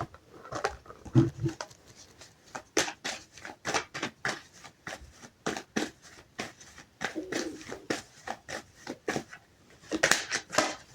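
Tarot cards being handled: a string of soft, irregular clicks and flicks, several a second, with a faint low murmur a little over a second in and again around seven seconds.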